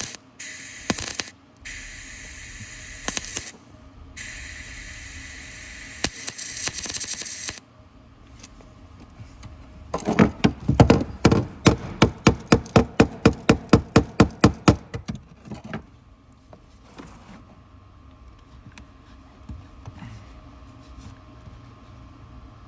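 A welding arc crackling and hissing on a steel truck frame in several short passes, stopping about seven seconds in. A few seconds later comes a fast run of sharp knocks, about four a second for some five seconds.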